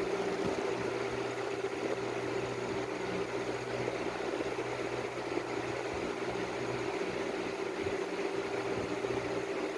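Steady machine hum with a constant tone over an even hiss, running without change.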